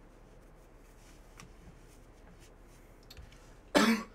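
Faint handling of foil trading-card packs, with a few light clicks, then one short, loud cough near the end.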